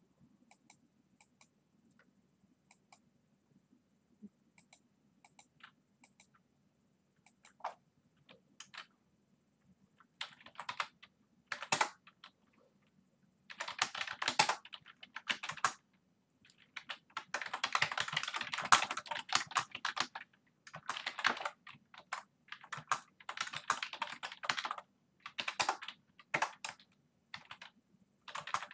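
Typing on a computer keyboard: scattered single clicks for the first ten seconds or so, then runs of fast typing in bursts of a few seconds with short pauses between.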